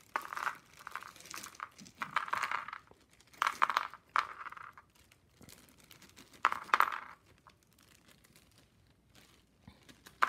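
Plastic zip-top bag crinkling as it is handled and opened, in about four bursts over the first seven seconds, then a few faint clicks.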